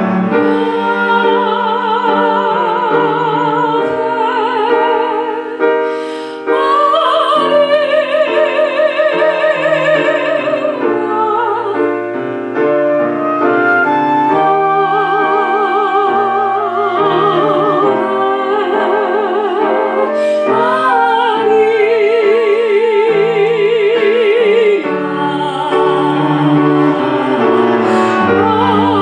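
Live classical-style music: a singer sustaining long notes with a wide operatic vibrato over piano accompaniment.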